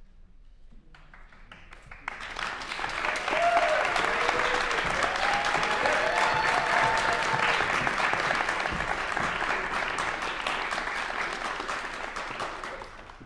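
Audience applauding, building up about two seconds in, holding steady and dying away near the end.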